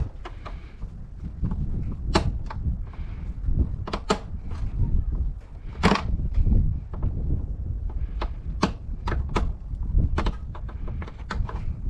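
Wind rumbling on the microphone, with irregular sharp clicks and taps of a screwdriver turning the plastic screws on a plastic air filter housing.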